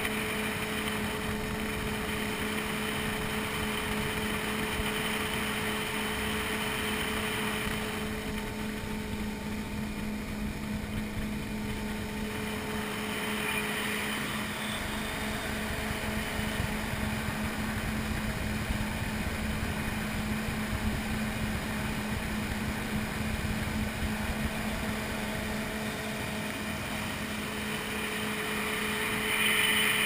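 Personal watercraft engine running steadily at cruising speed: an even engine drone over a constant rushing of wind and water.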